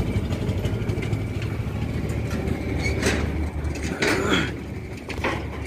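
Massey Ferguson 241 DI tractor's three-cylinder diesel engine idling steadily, with a few short clatters about three and four seconds in.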